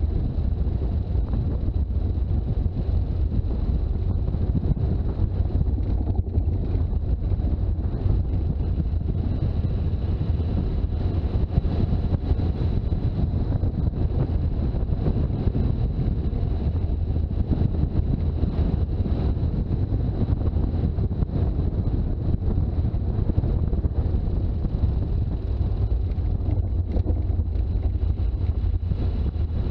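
Toyota HJ61 Land Cruiser's turbo-diesel engine and road noise: a steady, deep rumble while driving, with wind buffeting the microphone.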